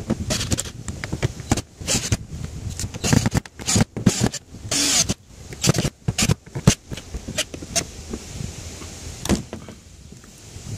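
18-volt cordless drill driving screws into the metal flange of an RV roof vent, the motor running in short, irregular bursts. Quieter for the last couple of seconds.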